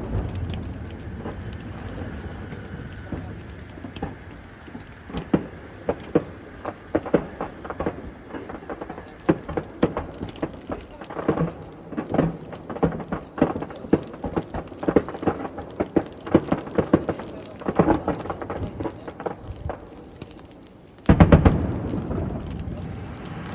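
Aerial fireworks: a rumbling boom fading at the start, then many sharp crackles and pops from crackling stars, and another deep boom from a large shell bursting near the end.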